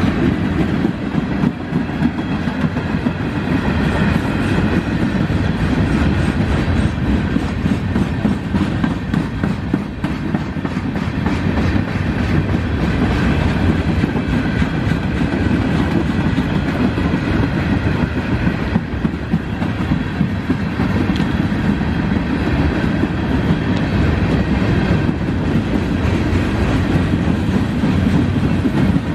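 Freight train cars rolling past at speed: a steady rumble of steel wheels on rail, with a running clickety-clack as the gondola cars' wheels go by.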